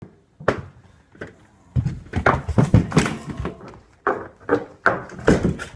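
A door clicking about half a second in, then high-heeled shoes knocking irregularly on a tile floor, with heavier thuds mixed in.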